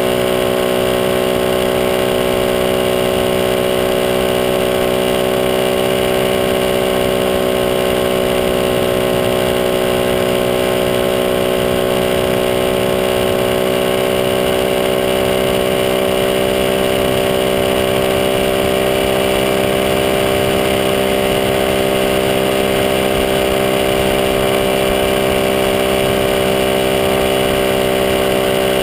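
Honda Monkey mini motorcycle's single-cylinder four-stroke engine running under way at a steady cruise. Its pitch rises a little about halfway through and then holds, over a steady rush of wind and road noise.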